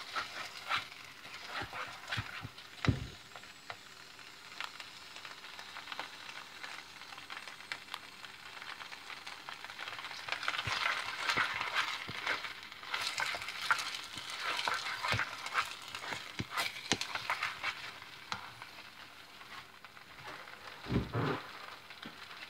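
Silicone spatula stirring and scraping through a pot of thick white cooked food on a stovetop, over a crackling sizzle from the hot pot, busiest in the middle. A couple of dull knocks, one early and one near the end.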